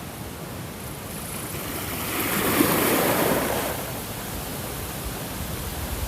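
Ocean waves breaking on a shore: steady surf, with one wave swelling to a loud crash about two to three seconds in and then washing back.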